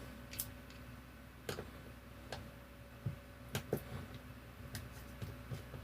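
Faint, irregular clicks and taps of a hair straightener's plastic parts and small tools being handled as it is taken apart, about ten clicks spread over a few seconds, with a low steady hum underneath.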